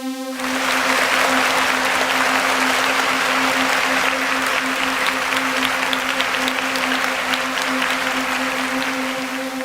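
Dense crackling hiss made of many tiny clicks, over a steady low hum, starting about half a second in and stopping abruptly at the end.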